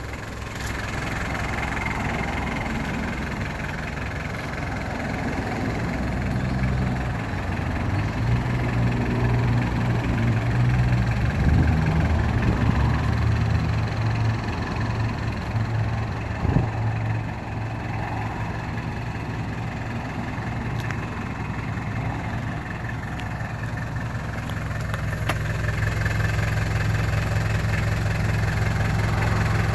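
Mitsubishi Delica L300's 4D56 turbo diesel four-cylinder idling steadily, growing louder toward the end. There is one brief click a little past halfway.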